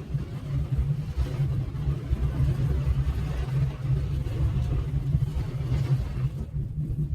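Car on the move with a steady low rumble of engine and road, and a faint hiss of rain above it.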